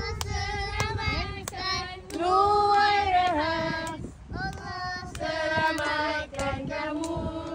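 Children and adults singing a birthday song together, with hand claps keeping time.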